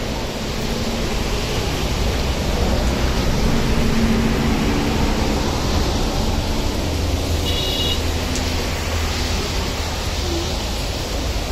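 Heavy rain pouring steadily onto a wet road, a dense even hiss, with the low rumble of traffic passing on the wet road.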